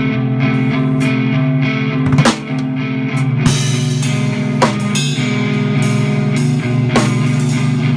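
Live rock band playing in the room: guitar holding chords over a drum kit, with cymbal hits throughout and a crash about three and a half seconds in.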